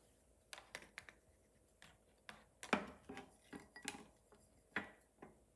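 Irregular light clicks and clinks of objects on a hard tabletop, with three louder knocks: a little before three seconds in, just before four, and near the end.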